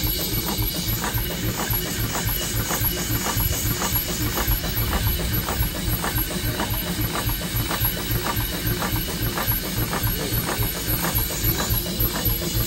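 Antique coal- and wood-fired steam traction engine running, its cylinder, crosshead and flywheel working with a steady mechanical beat of about three strokes a second.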